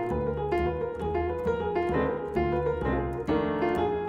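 Upright piano playing a jazz blues, a felt strip between its hammers and strings giving a mellow, softened tone. Chords and single notes are struck one after another over sustained low notes.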